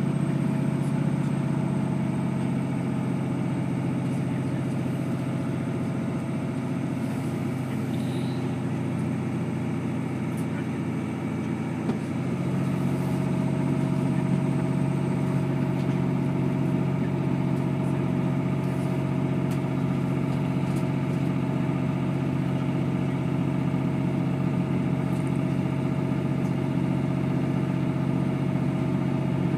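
Class 159 diesel multiple unit's Cummins diesel engine thrashing under power as the train accelerates, heard from inside the passenger saloon as a steady low drone. About twelve seconds in, the engine note shifts and grows a little louder.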